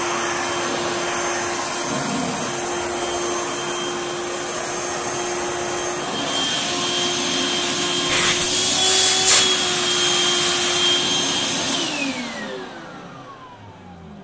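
Vintage Hoover vacuum cleaner motor running at full speed with a steady whine over a rushing hiss, swelling briefly about nine seconds in. It is switched off near the end, and its pitch falls away as the motor winds down. This is the machine's first test run after unboxing, and it runs.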